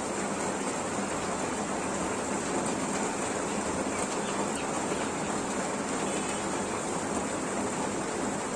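Steady rain falling, an even hiss that does not change, with a few faint high bird calls in the middle and near the end.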